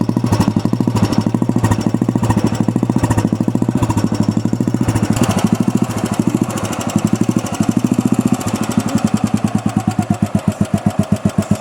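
A 1980 Royal Enfield Bullet's single-cylinder four-stroke engine, freshly kick-started, running at a steady idle with an even, rapid thump.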